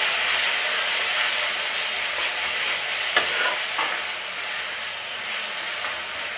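Onion-and-spice masala sizzling in oil in a metal kadai while a spatula stirs and scrapes through it. A sharp clink of the spatula against the pan comes about three seconds in, and a lighter one soon after.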